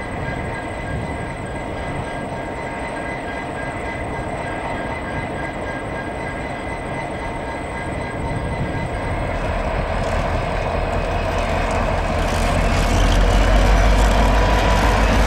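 Two diesel-electric locomotives, led by an EMD GT46C with its turbocharged EMD 710 two-stroke diesel, running along the track toward the listener. The engine rumble and running noise grow steadily louder from about eight seconds in as they draw near.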